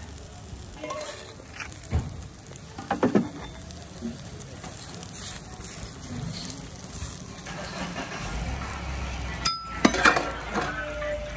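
Metal spatula clinking and scraping on an iron dosa griddle a few separate times, over faint sizzling of the dosa cooking in oil.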